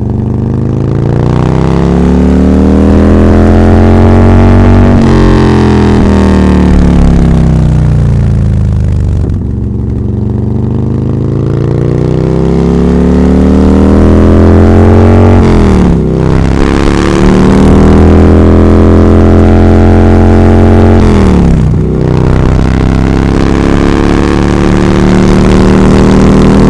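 Bajaj Pulsar N160's single-cylinder engine pulling the bike along the road, its note rising and falling as the throttle opens and eases. Twice in the later part the pitch drops sharply and climbs back.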